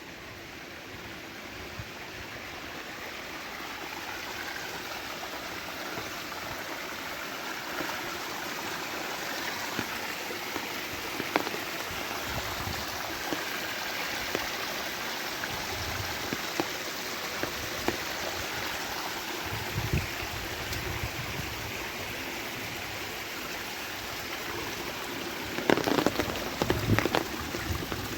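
Steady rain with running water, with scattered sharp drop taps. A flurry of louder taps and thumps comes near the end.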